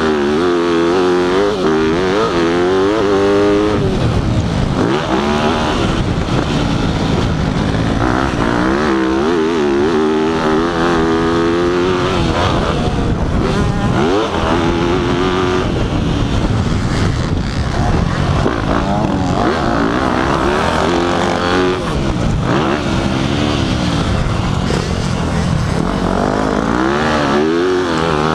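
Dirt bike engine revving hard and easing off again and again as it is ridden around a motocross track. The pitch sweeps up and drops back, over a constant rushing noise.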